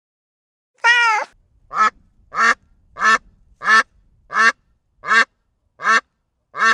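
Duck quacking: one longer quack, then a run of about eight short quacks at an even pace.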